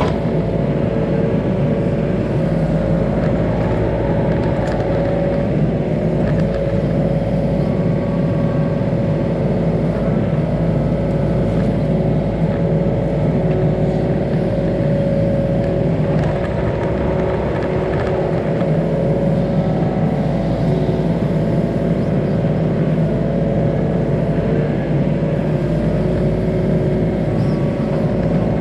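Yanmar ViO35 mini excavator's diesel engine running steadily at working speed, with a few light knocks.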